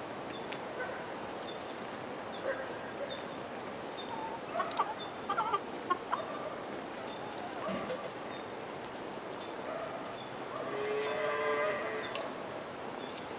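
A hen clucking softly, with a few short calls midway and one longer, steady drawn-out call near the end.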